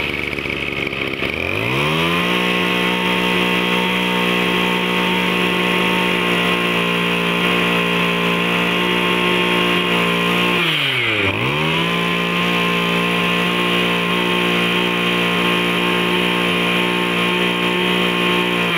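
Small two-stroke brush cutter engine revving up to full throttle about a second and a half in and held there. Near the middle the throttle drops back briefly, then it revs up again and holds high.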